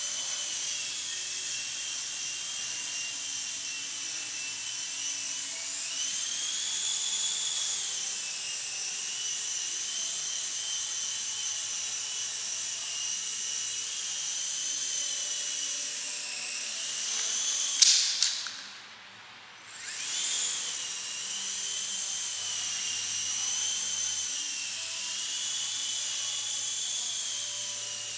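Traxxas DR-1 coaxial RC helicopter's electric motors and rotors whining at a high pitch that rises and falls with throttle. About 18 seconds in a couple of sharp knocks sound, the whine stops for about two seconds, then spins back up.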